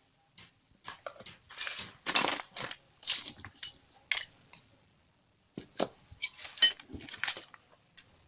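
Small steel motorcycle engine parts clinking and scraping as they are handled and fitted: a string of light metal clinks and short rattles, some with a brief high ring, with a pause about halfway through.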